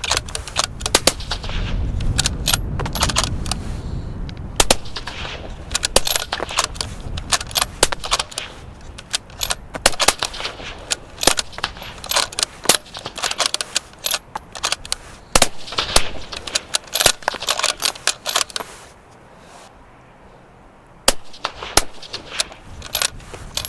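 Rifle gunfire, many sharp shots in quick, uneven succession, some much louder than others, fired through suppressors. A short quieter gap comes about nineteen seconds in before the shots resume.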